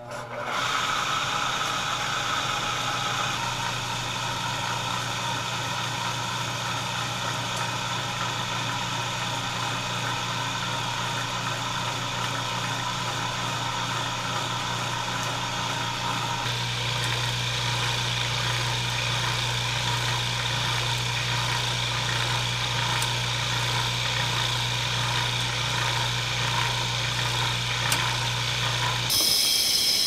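A salvaged washing machine induction motor with a two-speed centrifugal clutch starts and runs with a steady electric hum and whir. Its tone shifts about halfway through. Near the end the hum stops while a higher whir carries on.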